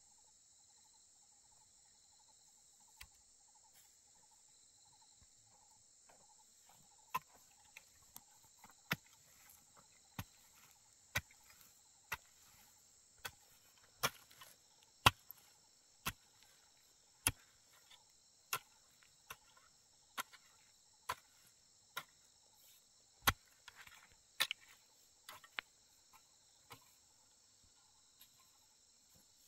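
Insects, crickets by their tag, chirring steadily in a high buzz. From about seven seconds in, sharp knocks come about once a second and are louder than the insects.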